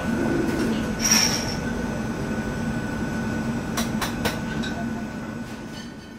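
Commercial kitchen background noise: a steady low rushing din with a faint steady high whine, a brief high squeal about a second in and a few sharp metallic clinks, fading out near the end.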